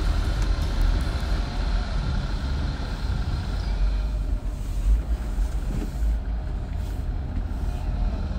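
Jeep crawling over slickrock, heard from inside the cabin: a steady low rumble of engine and tyre noise.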